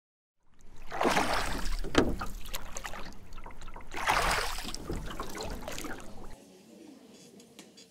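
Water splashing and washing in two swells about three seconds apart, with small splashy ticks, then a sudden drop to a faint background about six seconds in.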